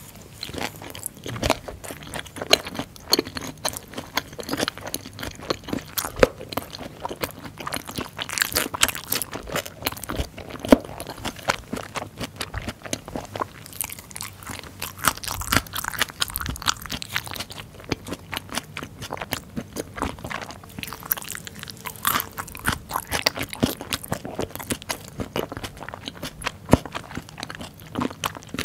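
Close-miked chewing of a mouthful of hongeo samhap (fermented skate with pork and aged kimchi), with dense, irregular wet crunching throughout.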